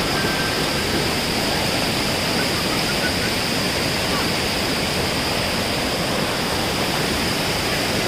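Shallow stream water rushing over flat rock slabs and down a small waterfall cascade: a steady, even rush of water.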